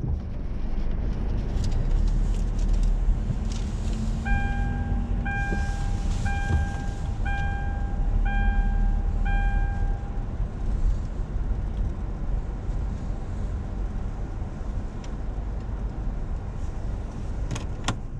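Steady low rumble of a car's engine and tyres heard from inside the cabin while driving slowly. From about four seconds in, an electronic beep sounds six times, about once a second.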